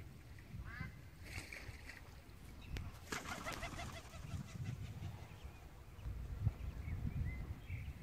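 Muscovy ducks and a duckling giving short chirping calls, with a burst of flapping wings about three seconds in as a white Muscovy duck takes off.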